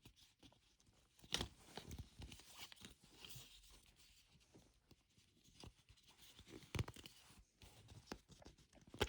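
Faint handling noises of the iPhone's paper documentation packet being opened: light rustling and a few soft clicks and taps, the clearest about a second and a half in, near seven seconds and just before the end.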